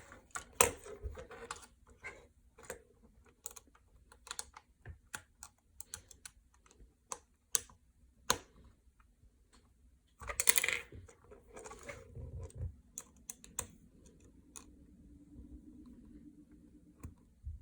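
Small irregular clicks and taps of a screwdriver and hands working a screw out of a plastic drone arm, with a louder brief clatter about ten and a half seconds in.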